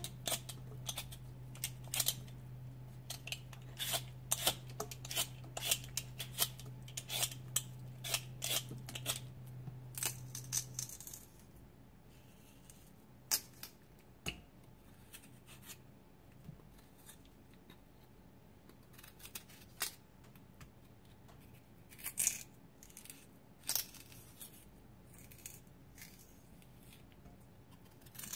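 Kitchen knife peeling a raw potato: quick scraping cuts of the blade through the skin, with peelings dropping into a stainless steel bowl. The strokes come thick and fast for the first eleven seconds, then more sparsely. A low steady hum stops about eleven seconds in.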